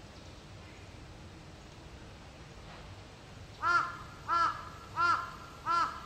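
A crow cawing four times, short arched caws evenly spaced about two-thirds of a second apart, starting a little past halfway.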